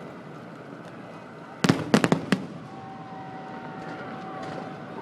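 Fireworks going off: a quick run of five or six sharp bangs about a second and a half in, over a steady background noise.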